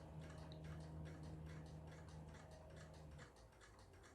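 Faint, regular ticking, several ticks a second, over a low steady hum that stops about three seconds in.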